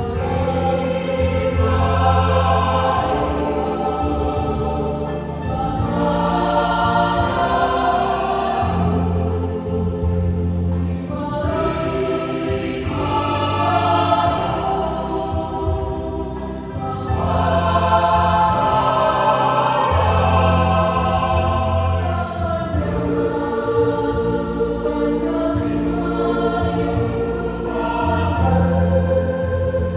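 Church youth choir singing a hymn in several parts, in phrases of a few seconds with held low bass notes under the voices.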